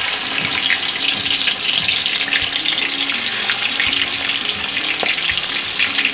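Prawns sizzling as they fry in hot mustard oil in a kadai: a dense, steady hiss with many small crackles.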